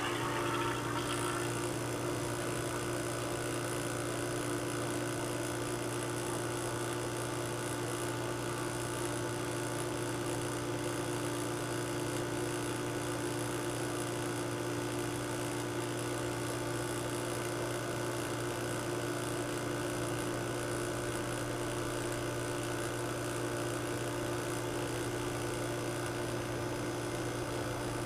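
Refrigeration vacuum pump starting up and running with a steady, even hum, pulling fresh oil from a cup through a hose into a sealed fridge compressor.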